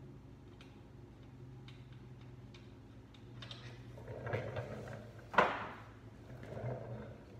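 Hands and tools working on a bicycle's pedals. Faint scattered clicks are followed, from about three and a half seconds in, by rustling and knocks. One sharp clack about five and a half seconds in is the loudest sound.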